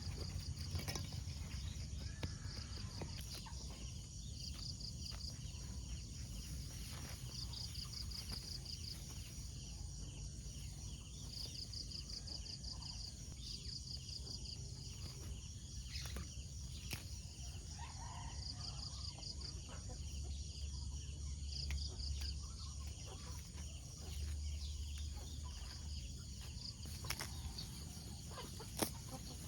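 Outdoor rural ambience: insects chirping in short repeated trills over a steady low rumble, with a few scattered clicks.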